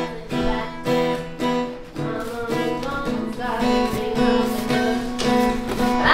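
Acoustic guitar music, chords strummed and notes plucked in a steady rhythm.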